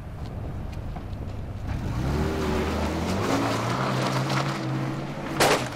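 A dark SUV's engine revving up as it pulls away, its pitch climbing and then holding. Near the end, a single loud gunshot.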